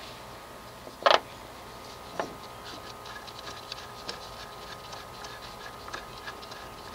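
A sharp metallic click about a second in and a smaller one just after two seconds, then a run of faint light ticks: hand tools and metal hardware being handled as the master cylinder is unbolted from the brake booster.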